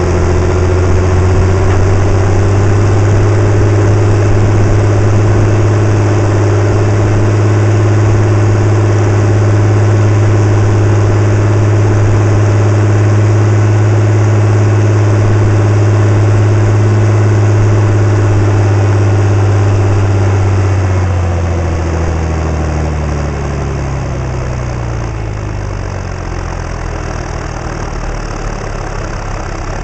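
John Deere 4520's turbocharged six-cylinder diesel running hard and steady under the driver's seat. About two-thirds of the way through it is throttled back, and the engine note falls and quietens as the tractor slows.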